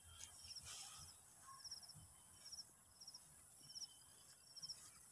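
Near silence outdoors with a faint insect chirping in a steady rhythm, one short chirp about every two-thirds of a second, over a thin high hiss. There is a brief rustle under a second in.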